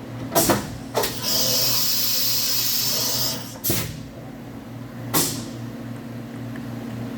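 1996 Fadal VMC4020 CNC vertical machining center running: a steady hum with a few sharp clicks, and a loud hiss starting about a second in and lasting about two seconds.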